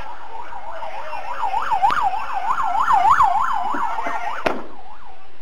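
Emergency vehicle siren on a fast yelp, its pitch rising and falling about four times a second, growing louder and then cutting off with a sharp click near the end.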